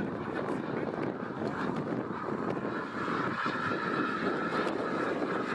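K-140 model jet turbine of an RC Viper jet in flight: a steady jet rush that grows louder in the second half as the model comes closer, with wind on the microphone.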